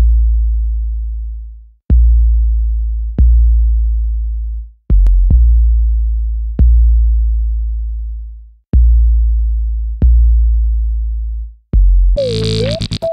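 Electronic trap beat: deep 808-style bass kicks, each hitting hard and then fading slowly, in a repeating syncopated pattern. Near the end a bright, buzzy synth line comes in, its pitch dipping and rising.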